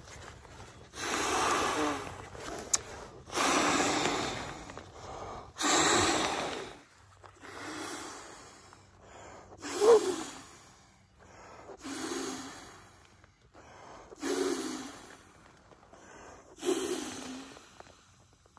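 A man inflating a Klymit Insulated Static V sleeping pad by mouth: about eight long, hard breaths blown into the valve, roughly two seconds apart, with short pauses for air between them.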